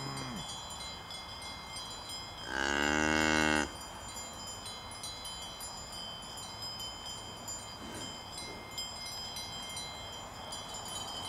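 A cow moos once, loud and about a second long, a couple of seconds in, over the steady ringing of several cowbells on grazing cattle. The end of another, falling moo fades out at the very start.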